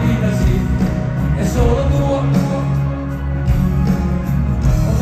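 Live rock band with lead vocals, heard from the crowd through the stadium PA.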